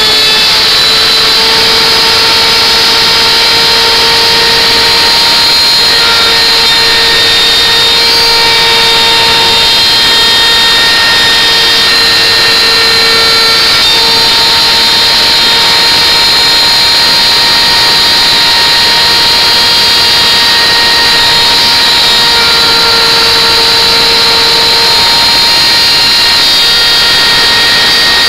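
Electric wood router running steadily at high speed, its bit cutting a groove in a wooden board: a loud rushing noise with a steady high whine.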